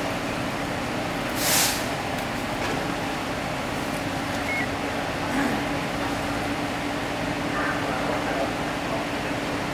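A large vehicle's engine idling with a steady hum, with a short hiss of released air, like an air brake, about a second and a half in.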